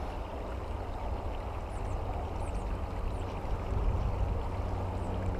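Steady rushing of flowing creek water, with a few faint, short, high chirps from small finches.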